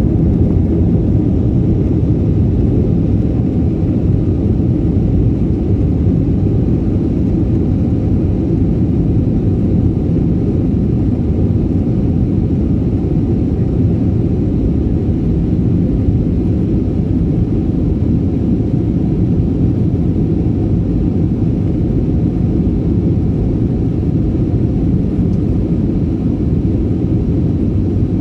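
Jet airliner's engines and rushing air heard from inside the cabin as a steady, loud low rumble during the climb just after takeoff.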